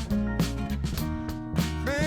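Background song: guitar and bass with a steady beat, a singing voice coming back in near the end.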